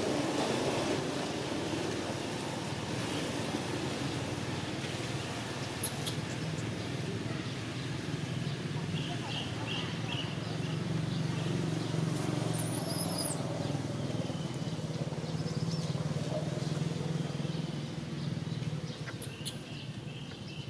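Steady low background rumble, like distant traffic or an engine running, with a quick run of four short high chirps about nine seconds in and a brief high gliding call a few seconds later.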